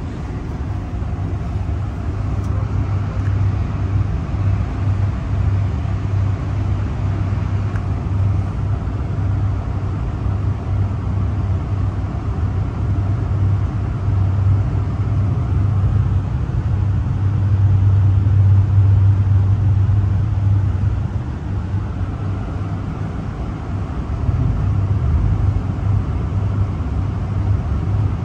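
Steady low rumble of a moving passenger train heard from inside its dome car: the wheels rolling on the rails and the car body vibrating. It grows a little louder about two-thirds of the way through, dips briefly, then rises again near the end.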